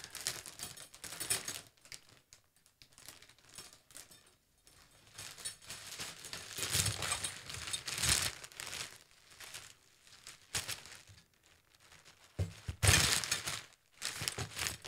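Fabric of a collapsible softbox rustling and crinkling as it is handled and shaken open, with scattered sharp clicks, the loudest swell near the end.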